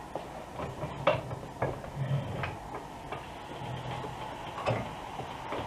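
Scattered light metallic clicks and low knocks from work on a car's rear suspension, as the shock absorber is freed with a floor jack under the hub.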